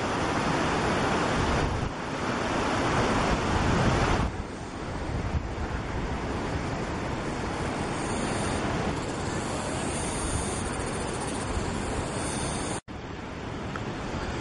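Rock and debris of a landslide pouring down a mountainside: a continuous rushing noise, loudest for the first four seconds. It cuts off abruptly a little before the end, giving way to quieter outdoor noise.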